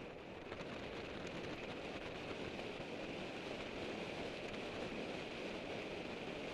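Wind rushing over a Contour HD action camera's microphone on a road bike riding at speed in a group, with the hum of tyres on tarmac beneath it. The rush swells a little about half a second in and then holds steady.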